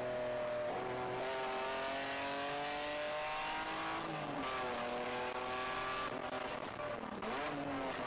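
Race car engine heard from inside the cabin, its note climbing steadily under power with a break about four seconds in, then falling and swooping back up about seven seconds in, over constant wind and road noise.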